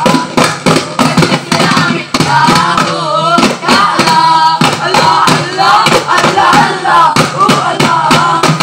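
Duff muttu: a group of voices chanting together while daf frame drums are beaten in a fast, even rhythm. Around the middle the drumming eases and the voices hold a long, wavering sung line before the beat picks up again.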